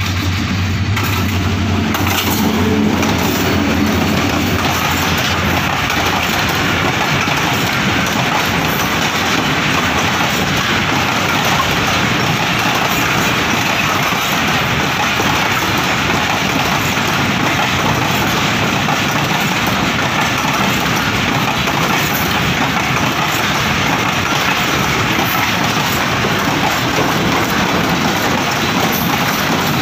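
A diesel-hauled container freight train passing close by. A steady low engine drone in the first few seconds gives way to the continuous rolling rush of the wagons' wheels on the rails.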